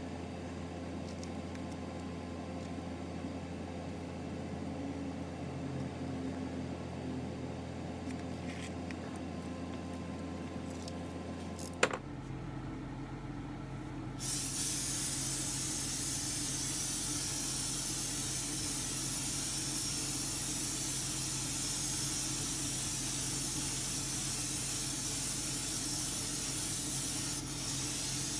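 Gravity-feed spray gun spraying paint with a steady hiss. It starts about halfway through, with a brief break near the end. Before it there is only a low steady hum with faint ticks, then a single sharp click.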